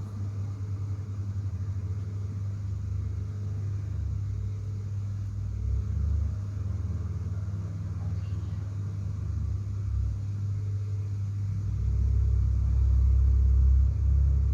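Fire engine's engine running steadily with a low rumble, muffled through a closed window, swelling louder near the end.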